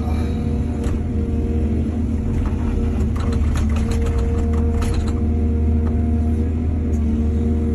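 Excavator diesel engine running steadily under load with a deep drone. A run of sharp clattering knocks comes through it for a couple of seconds in the middle.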